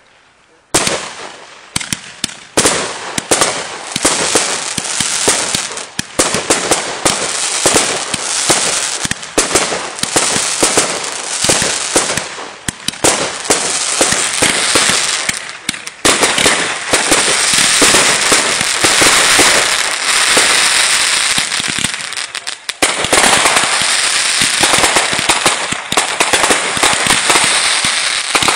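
Consumer 1.4G aerial fireworks going off in rapid volleys of sharp bangs and pops, with dense crackling. The firing starts about a second in and gets denser and almost continuous in the second half.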